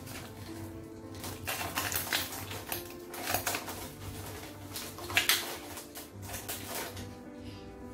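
Kitchen handling noises during wrap assembly: an irregular run of clicks and crackles, with a few louder ones about three and five seconds in.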